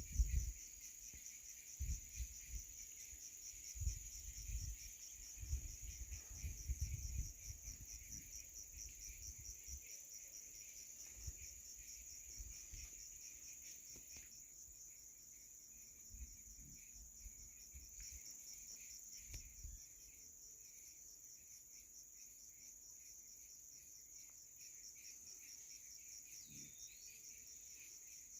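Insects chirring steadily in a fast, high-pitched pulsing trill, faint overall. Low rumbling thumps come and go during the first third, and a single short gliding note sounds near the end.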